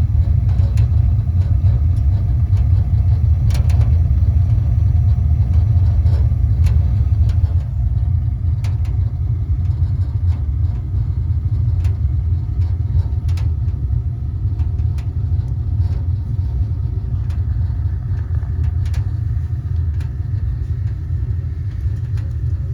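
A steady low rumble with scattered light clicks, easing slightly in level about a third of the way through.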